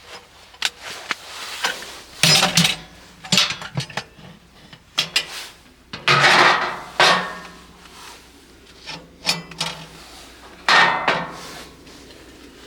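Irregular clatter and knocking with several longer scraping bursts: gear, cookware or wood being handled by hand.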